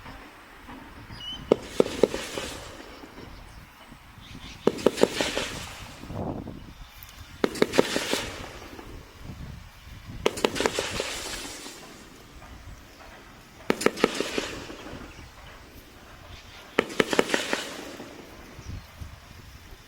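A 36-shot daytime aerial cake firing its neon smoke-trail shots. It fires six volleys about three seconds apart, each a quick run of several launch pops followed by about a second of hiss.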